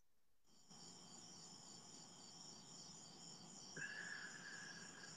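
Near silence: faint room tone with a steady, high-pitched pulsing chirr like insects, and a faint steady tone joining about four seconds in.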